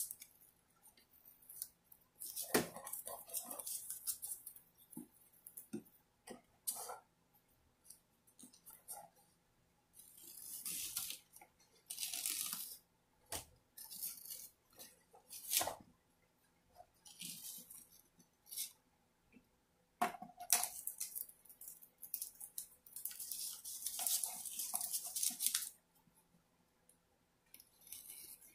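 Blue painter's tape being torn and rubbed down by hand onto a clock's glass face: intermittent scratchy rustles lasting a second or two, with a few sharp clicks between.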